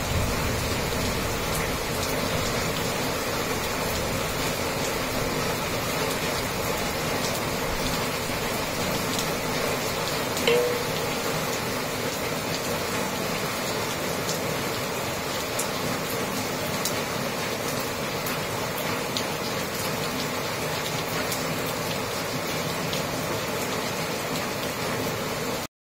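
Steady rain falling, an even hiss with scattered drop ticks. A short louder sound comes about ten seconds in.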